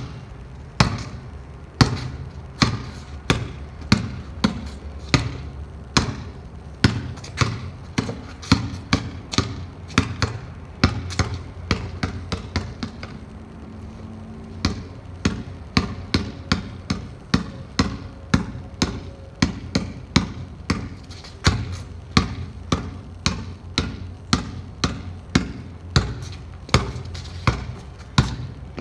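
Basketball dribbled on a tiled paved court: a steady run of sharp bounces, about one to two a second. The bounces pause briefly about twelve seconds in, then pick up again a little quicker.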